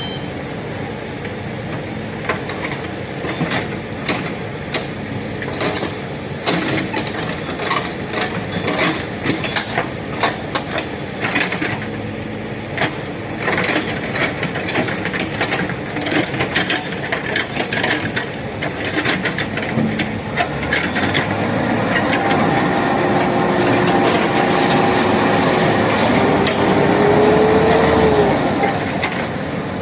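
Backhoe loader working: its diesel engine runs under many sharp clanks and clatters of the bucket and arm on earth and stone. In the last third the engine works harder and louder, with a steady whine that rises in pitch near the end.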